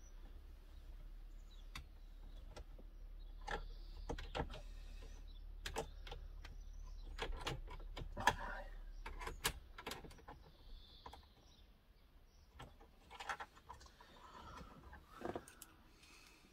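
Screwdriver driving screws and plastic dashboard trim clicking and knocking as a touchscreen radio is fitted into a van's dash: scattered small clicks and taps, busiest in the middle.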